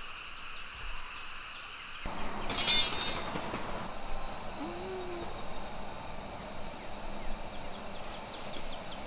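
A short metallic clatter about two and a half seconds in as a steel fire stand is handled and set up on gravel, over steady insect chirping.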